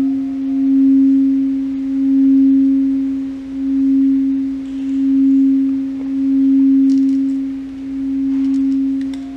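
Crystal singing bowl sounding one steady low tone with a faint octave above it, swelling and fading in slow even pulses about every second and a half.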